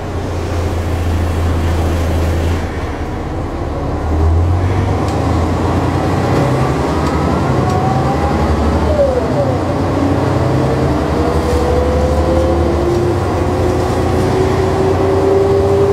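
A single-deck bus driving along, heard from inside the passenger saloon: a steady low engine drone, louder from about four seconds in, with whines that rise slowly in pitch as the bus picks up speed.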